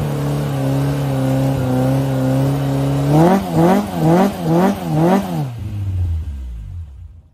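Car engine holding a steady speed, then blipped five times in quick succession, each rev rising and falling, before the pitch drops away and the sound fades out.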